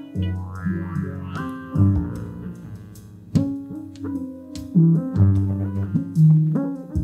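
Electronic instrumental music from a modular synthesizer and effects rig: a repeating pattern of plucked-sounding bass and chord notes with sharp attacks, a low note landing about every second and a half.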